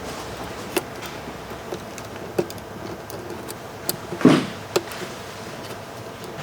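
Small plastic clicks and taps of hands working inside a laptop: Toughbook CF-30 LCD ribbon cables being fitted back into their connectors. There is a brief, louder rustle a little past four seconds in.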